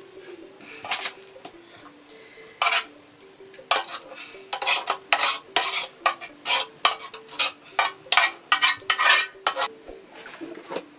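A metal utensil scraping and knocking against an aluminium saucepan as thick vegetable paste is scraped out into a clay pot: a few clinks at first, then a quick run of scrapes and knocks through the middle.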